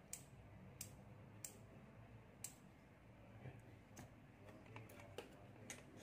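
Light, sharp clicks, about seven at uneven intervals, from a 12 V four-pin relay being switched and handled with multimeter probes and clip leads during a continuity test.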